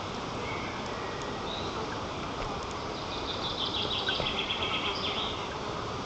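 Strong wind rushing over the nest camera's microphone. A bird gives a fast run of high call notes for about two seconds, starting about halfway through.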